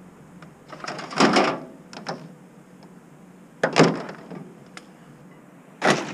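Scrap metal being unloaded: three loud clattering crashes about two seconds apart as pieces are thrown down, each with a short metallic ring.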